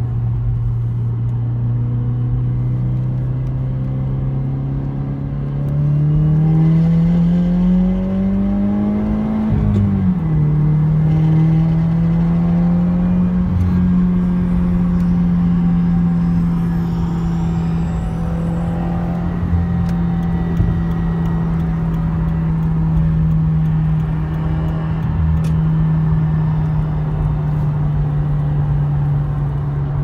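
2017 Subaru WRX's turbocharged 2.0 L flat-four, heard from the cabin while driving. The engine note rises under acceleration from about six seconds in, drops suddenly near ten seconds, then holds steady at cruise. The car has an exhaust manifold leak that the owner traces to a missing manifold nut, causing a boost leak and a rattle or buzz.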